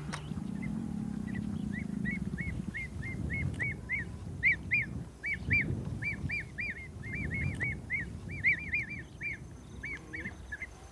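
A bird calling in a long series of short, arched chirps, several a second, starting about half a second in and stopping near the end, over a low background rumble.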